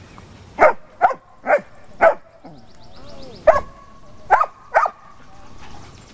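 Dog barking in play: seven short, sharp barks, four in quick succession, a pause of about a second, then three more.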